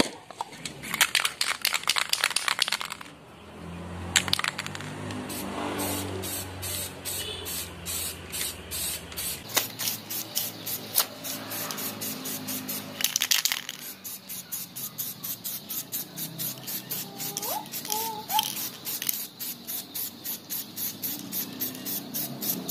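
Aerosol spray-paint can spraying grey primer, hissing in many short repeated bursts, with a longer spray in the first few seconds.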